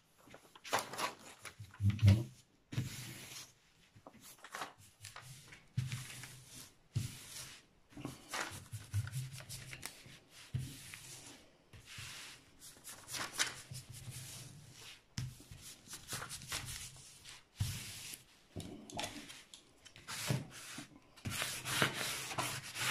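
Hands rubbing and smoothing a large rolled diamond-painting canvas and its paper release sheet on a table: irregular rustling, rubbing strokes. There is a louder thump about two seconds in.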